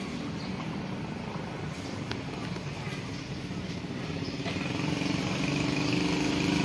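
A motor vehicle engine running steadily, growing louder from about halfway through as it approaches. A single sharp click sounds about two seconds in.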